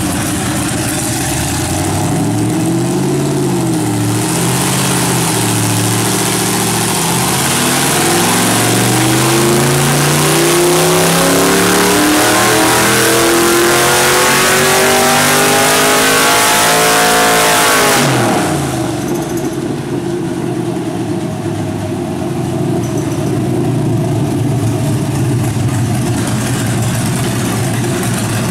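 GM LQ4 6.0-liter V8 with a stage 2 cam, loaded on a hub dyno: a few seconds of light revving, then a wide-open-throttle dyno pull with the revs climbing steadily for about twelve seconds. The revs then drop sharply back to idle, and it idles for the rest.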